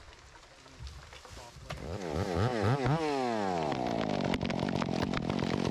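Chainsaw engine, quiet at first, blipped several times about two seconds in, its pitch jumping up and down, then opened up and held at full revs.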